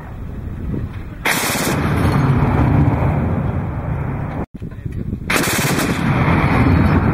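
ZU-23-2 twin-barrelled 23 mm anti-aircraft autocannon firing long, continuous fully automatic bursts. The first burst starts about a second in; after a brief dropout just past halfway, firing resumes and runs on.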